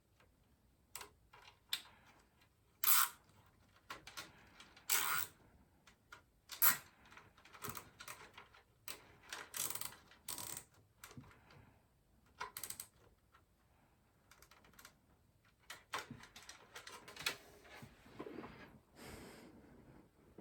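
Hands routing and handling cables inside a PC case: irregular plastic clicks, rustles and short scrapes, with a few louder knocks in the first seven seconds.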